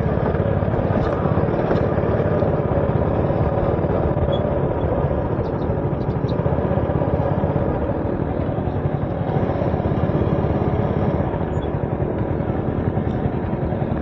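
A motor vehicle engine running steadily, with no change in pitch or loudness.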